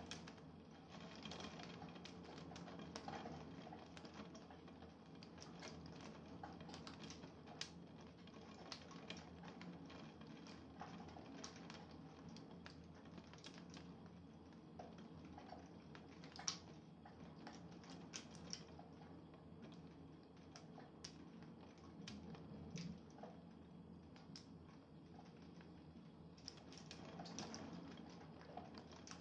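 Faint, irregular tapping of raindrops falling close by during a thunderstorm, over a low steady background hum.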